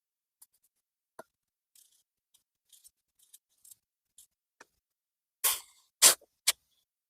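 Faint light clicks and taps of small parts being handled, then three short blasts of compressed air from a blow gun near the end, the first the longest.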